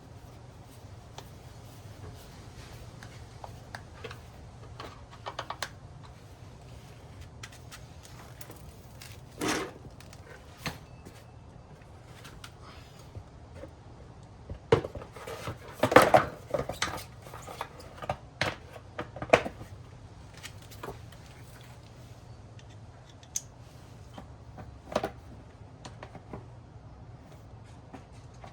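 Scattered clicks, clinks and knocks of hand tools, screws and plastic panel pieces being handled during motorcycle reassembly, with a cluster of louder knocks about halfway through, over a low steady hum.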